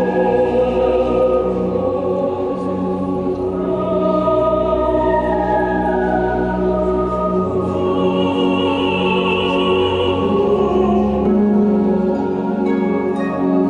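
Recorded dance music with long held, choir-like notes. Short plucked notes come in near the end.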